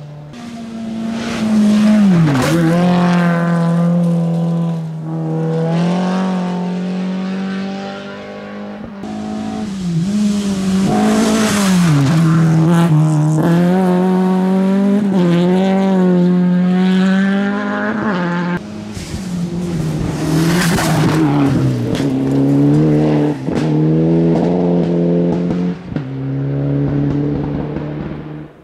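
Rally cars on a gravel stage passing one after another, engines revving with the pitch climbing and falling sharply at each gear change and lift, and a rush of tyre and gravel noise as each goes by. The sound fades out at the very end.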